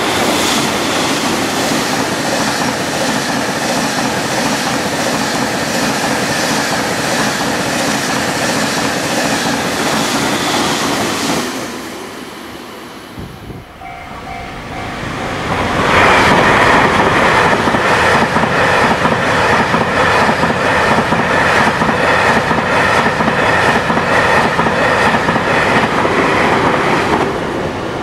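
JR Freight M250 Super Rail Cargo electric freight multiple unit passing at speed, its wheels clattering steadily over the rail joints; the noise fades away at about 12 seconds. After a short tone about 14 seconds in, a second pass of the same train at a level crossing begins at about 16 seconds, louder, and cuts off near the end.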